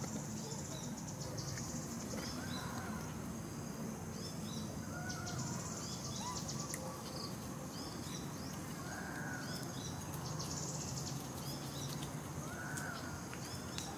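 Wild birds chirping and calling again and again, with several rapid high-pitched trills, over a steady low background hum.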